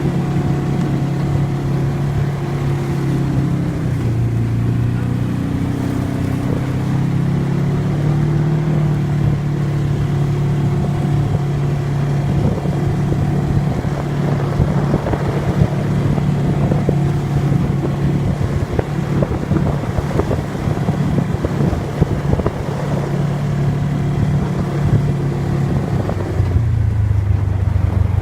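ATV engine running steadily as it is ridden through deep snow, its pitch shifting a little with the throttle and dropping to a lower note near the end, with wind and rough rumbling noise underneath.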